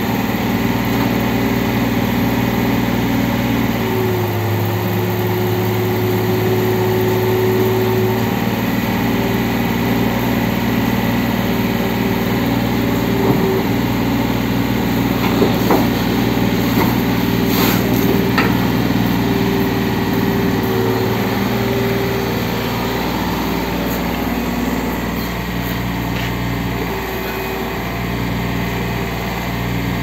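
Komatsu mini excavator's diesel engine running steadily under hydraulic load as the machine levers itself with its boom and climbs on its tracks onto a dump truck's tilted bed, the hum shifting in pitch now and then as the controls are worked. A few sharp metallic knocks come about halfway through.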